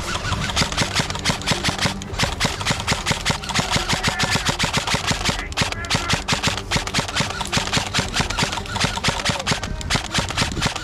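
Airsoft guns firing in rapid, continuous volleys: dense shots, many a second, with the loudest cracks coming about four times a second.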